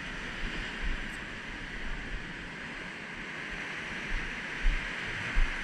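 Ocean surf breaking and washing up the sand as a steady rushing wash. Wind buffets the microphone in a few short low thumps near the end.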